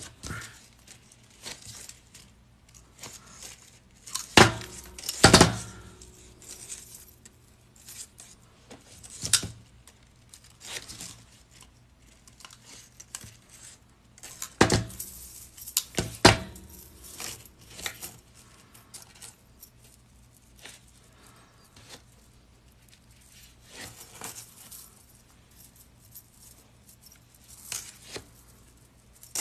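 Metal chainmail jump rings clinking and jingling in irregular bursts as a small chainmail piece is worked by hand and loose rings are picked up, with a few louder clatters.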